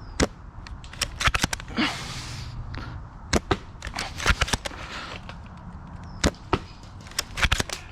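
Airsoft guns firing across the field: sharp snapping shots, some single and some in quick clusters of several, scattered through the whole stretch.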